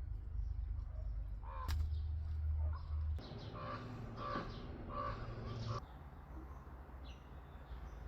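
A pet parrot making a run of about five short pitched calls in the second half, over a low hum that drops away near the end.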